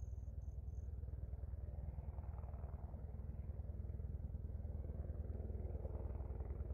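Helicopter in flight, a steady low rumble with a fast, even pulsing beat from the rotor, growing a little louder toward the end as it comes nearer.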